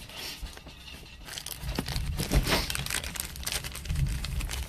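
Crinkling and tearing of a foil trading-card pack wrapper, a dense run of small crackles that picks up about two seconds in.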